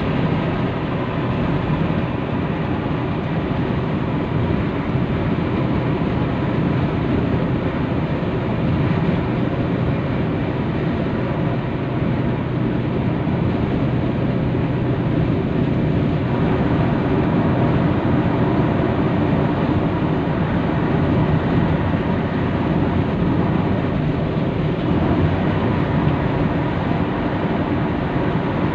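Steady road noise inside a car cruising on a freeway: tyres on the road surface and the engine, heard from the cabin.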